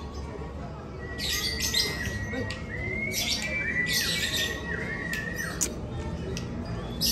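Lovebirds chattering in a series of shrill bursts, each a second or less, starting about a second in.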